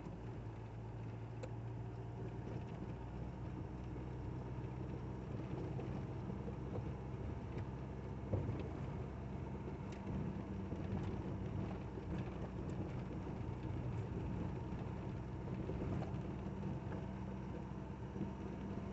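Motorhome driving on the highway: steady engine drone and road noise heard from inside the cab.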